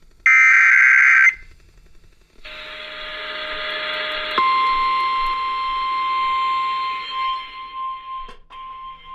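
An Emergency Alert System SAME data burst, about a second of harsh digital screech, comes just after the start. Radio hiss follows. About four seconds in, the steady 1050 Hz NOAA Weather Radio attention tone starts; it drops out briefly near the end and then resumes.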